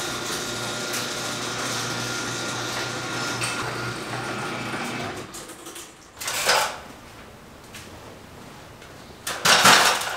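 A steady machine hum with a few held tones, like a fan or air-conditioning unit, which stops about five seconds in. Quieter room sound follows, with two short noises, one near the middle and one near the end.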